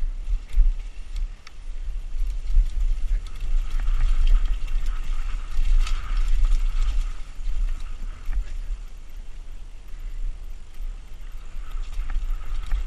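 Wind buffeting the microphone of a camera on a mountain-bike rider descending a dirt trail, with tyre noise on the dirt and scattered rattles and knocks from the bike over rough ground.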